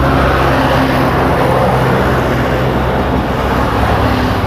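Hot oil sizzling and bubbling in small kadais as rice-flour batter deep-fries, over a steady low rumble.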